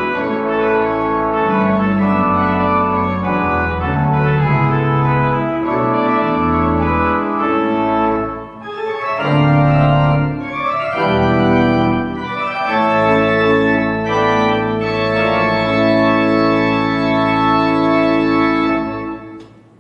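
Church organ playing full, sustained chords, with a brief dip in volume about halfway through, then a long held final chord that stops just before the end.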